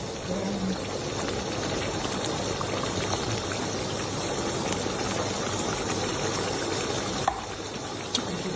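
Thick tomato-based sauce with minced meat and vegetables simmering in a wok, a steady bubbling hiss, with a single light click about seven seconds in.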